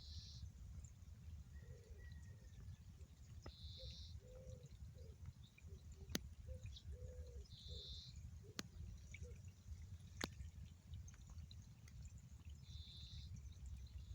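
Faint outdoor ambience of animal calls: a short high call repeats four times, about every four seconds, with a few faint lower warbling calls in the middle, over a steady low rumble. Three sharp clicks stand out about six, eight and a half and ten seconds in.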